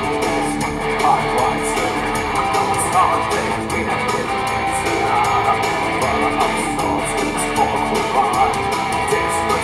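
Gothic rock music: an instrumental passage led by electric guitar over a steady beat.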